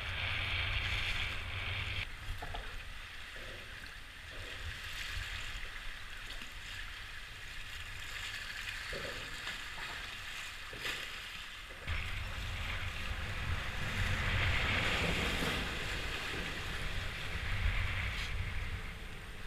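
Wind buffeting the microphone over choppy water slapping against a kayak hull. The wind rumble drops away for about ten seconds after the start, then returns.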